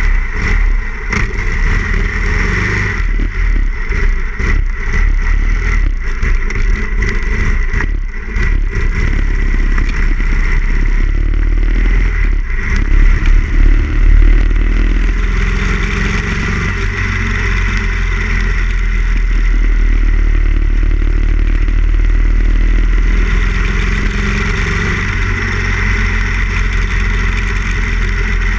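Harley-Davidson Ironhead Sportster XL1000's air-cooled V-twin engine running close to the microphone as the bike pulls away and rides along the road. The first half is uneven, with many knocks and rattles; after about fifteen seconds it settles into a steadier cruising sound.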